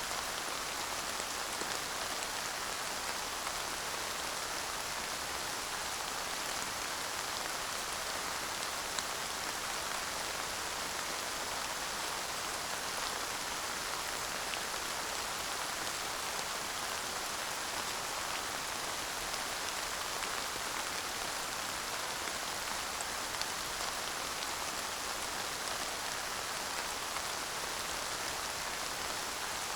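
Steady rain falling, an even hiss with no thunder, and now and then a single drop ticking a little more sharply.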